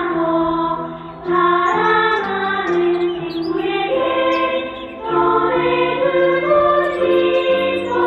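Children's choir singing a Korean children's song, held sung notes in phrases that break briefly about a second in and again about five seconds in.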